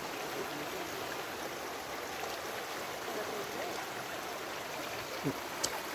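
Steady rushing of a forest stream, with a short sharp tick near the end.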